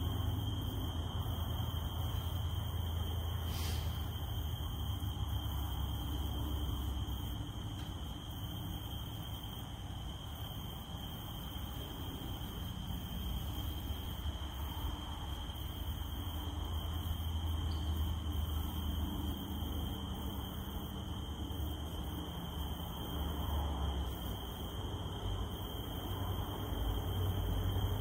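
Cicadas droning in one steady high-pitched tone over a constant wash of noise, with a single short click about four seconds in.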